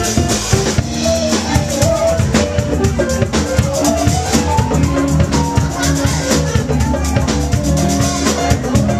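Live band music with a drum kit keeping a steady beat under sustained pitched instrument or vocal notes, a melody rising about halfway through.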